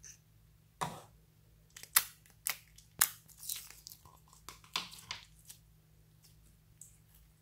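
A plastic slime tub being handled and clear slime peeled out of it: a series of sharp clicks and sticky crackling pops, the loudest about two and three seconds in, then fainter squishing as the slime is stretched in the hand.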